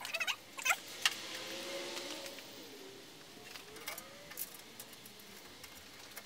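Small metal clicks and taps of a screw and washer being handled and started by hand into an aluminium cooling panel beside a car's corner light, with one sharper knock about a second in and light rustling.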